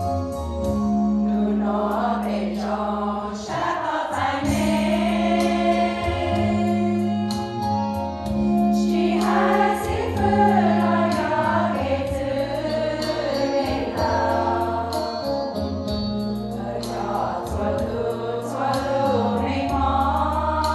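Women's choir singing a hymn together, over a steady low instrumental accompaniment of held notes.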